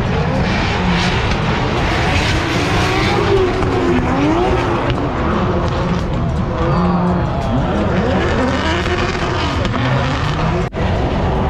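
Drift cars on track, several engines revving hard and falling back over one another, with tyre squeal. The sound breaks off sharply for a moment near the end.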